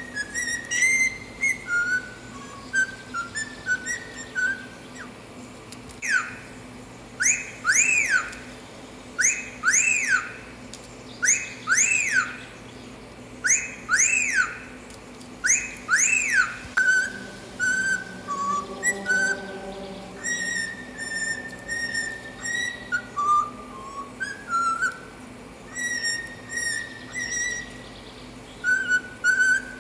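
Cockatiel whistling: a short whistled phrase, then wolf whistles ('fiu-fiu') in rising-then-falling pairs about every two seconds, then a tune of short whistled notes.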